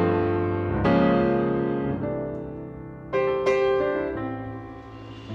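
Background music: piano chords struck every second or so and left to ring and fade.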